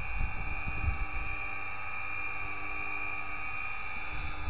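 ECHTOP three-phase electric motor running unloaded at steady speed on test, a steady whine made of several fixed tones. Some wind rumble on the microphone in the first second.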